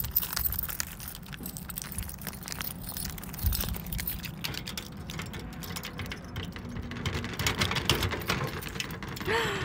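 A ring of keys jangling and clinking with many small metallic clicks as they are sorted through by hand, then a key going into a metal cluster-mailbox lock near the end.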